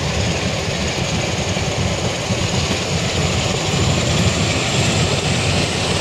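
Steady rumble and hiss of a passenger train running slowly through a station, heard from inside the carriage.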